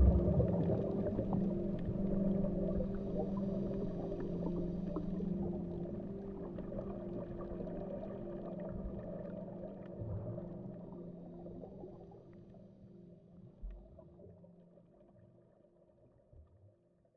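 Electro-acoustic ambient soundscape: steady low drone tones over a rumbling, crackling underwater-like texture, with a couple of soft low thumps. It fades out gradually over the last several seconds.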